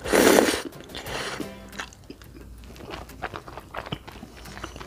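A loud slurp as spaghetti is sucked into the mouth, lasting about half a second, followed by quieter wet chewing with small clicks and lip smacks.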